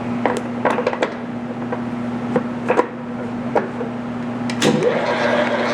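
Hobart V1400 planetary floor mixer: a few clicks and knocks over a steady hum, then about four and a half seconds in the motor starts in fourth gear. Its whine dips and rises, then settles into a steady running note.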